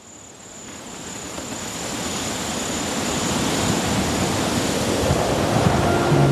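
Storm wind rushing over open grassland, swelling steadily louder as the weather closes in. A faint high insect trill fades out early on, and a few sustained music notes come in at the very end.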